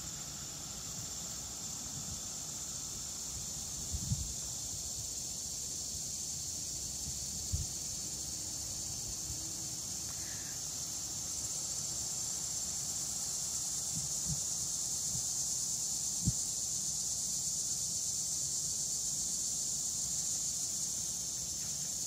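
Cicadas droning in a steady, high-pitched chorus that grows a little louder about halfway through. A few soft low thumps come through now and then.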